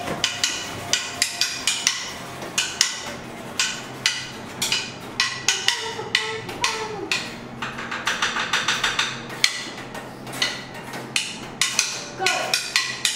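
Wooden drumsticks clicking and tapping in a loose, irregular rhythm, with a quick roll about eight seconds in.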